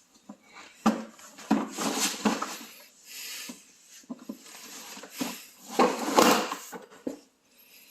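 A toddler making motorcycle noises with the mouth: breathy, sputtering lip-buzz bursts in several short goes, the loudest about six seconds in.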